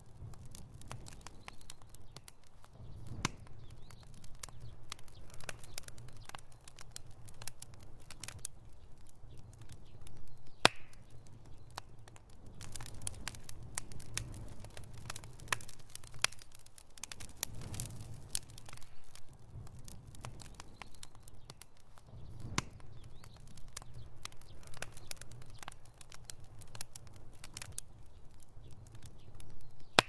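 Wood fire of split logs crackling, with irregular pops throughout and one sharper pop about ten seconds in, over a steady low rumble.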